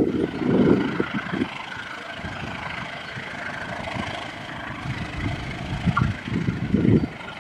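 A train's diesel engine running steadily, with gusts of wind buffeting the microphone near the start and again near the end.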